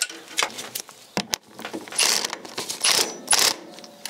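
Hand tools working an engine-mount bolt: scattered metallic clicks and clinks of socket and wrench, with two short loud rasping bursts about two and three seconds in. The 9/16 socket is not gripping the bolt properly.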